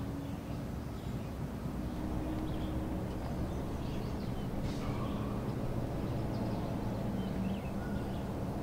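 Outdoor ambience: a steady low mechanical hum with a few held low tones, and faint, scattered bird chirps.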